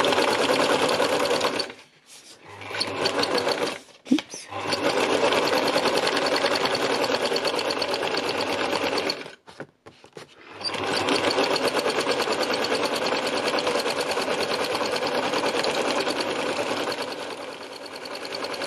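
Old Singer sewing machine running fast as it stitches free-motion lines into paper. It stops briefly about two and four seconds in, pauses for a second or so around halfway, then runs on, easing off a little near the end.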